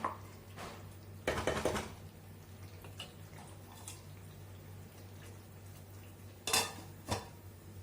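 A metal serving spoon scraping and clinking against a cooking pot while the cooked mince is dished out: a short rattling scrape about a second in, then two sharp clinks near the end.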